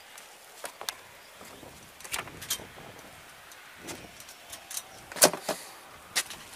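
Handling noise of a hand-held camera being moved about: scattered clicks and knocks, the loudest a little over five seconds in.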